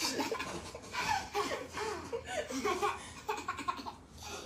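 A woman laughing heartily, with a small child laughing along.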